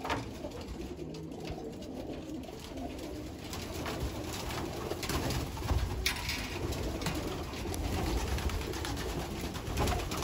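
A loft full of racing pigeons cooing, with a sharp tap about six seconds in.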